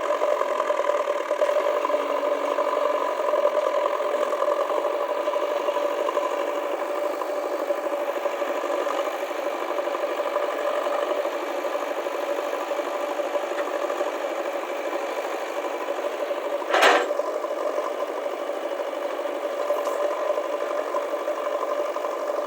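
Diesel engine of a JCB backhoe loader running steadily with a rattle. One sharp knock stands out about 17 seconds in.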